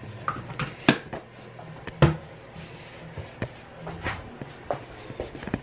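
Handling noise from a handheld camera being moved about: scattered knocks and clicks, with two louder knocks about one and two seconds in.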